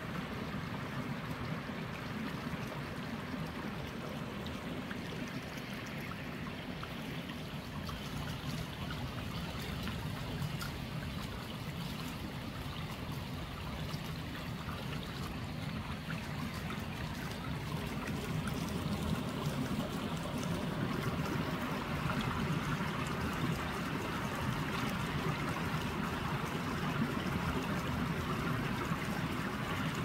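Shallow mountain stream running over rocks, a steady rush and trickle of water that grows a little louder just past halfway.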